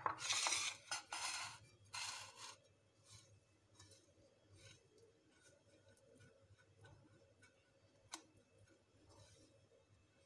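Dry breadcrumbs rustling and crunching under the fingers as hands roll potato balls in them on a china plate: three short bursts in the first couple of seconds, then faint scattered rustles and a single sharp click about eight seconds in.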